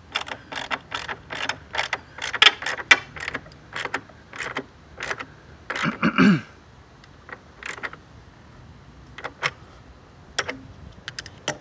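Socket ratchet clicking in quick runs as the battery hold-down bolt is tightened, followed by a few scattered clicks in the second half. About six seconds in there is a brief, louder low-pitched sound.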